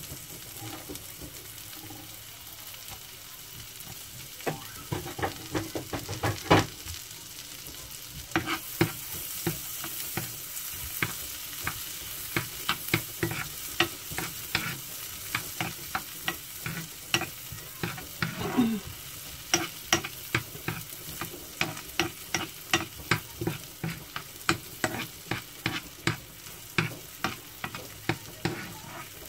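Garlic and ginger sizzling in foaming butter in a frying pan, with a steady hiss. A metal spoon stirring and clicking against the pan starts about four seconds in and keeps up a quick run of clicks from about eight seconds on.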